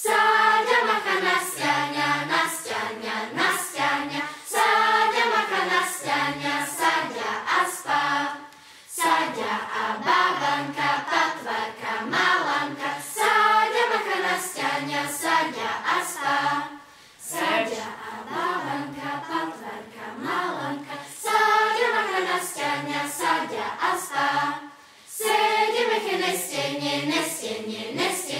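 Children's choir singing a Slovak children's folk song in sung phrases, with short breaks about every eight seconds.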